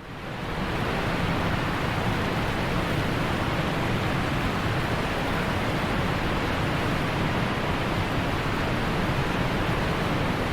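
A steady rushing noise sound effect, like roaring water or wind, with no tones or rhythm. It fades in over the first second and cuts off suddenly at the end.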